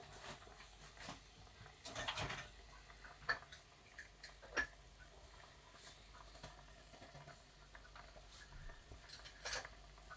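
Broth simmering faintly in a wide pan, with scattered light clicks and taps of kitchen items: a small cluster about two seconds in, two sharper clicks a little after, and another cluster near the end.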